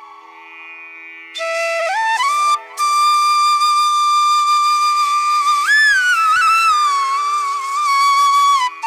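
Background music: a solo flute playing a slow melody of long held notes with sliding pitch changes, over a steady low drone. It enters about a second and a half in, after a quiet moment, and pauses briefly soon after.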